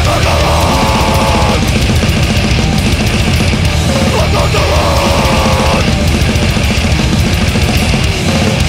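Loud, aggressive heavy band music: distorted guitars over fast, dense drumming, with a higher pitched line standing out over the mix twice, at the start and again about four seconds in.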